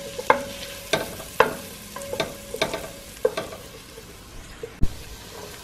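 Wooden spoon stirring chopped onions sautéing in butter in a stainless steel pot, with a soft sizzle and about seven irregular knocks of the spoon against the pot, the pot ringing briefly after some of them.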